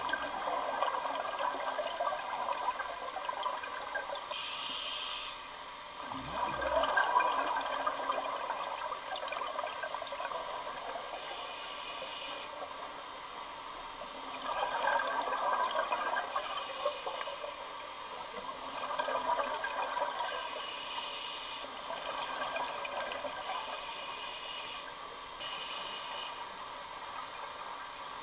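Scuba divers' regulator breathing heard underwater: several swells of exhaled bubbles a few seconds apart, with a fainter hiss of inhalation between them over a steady background hiss.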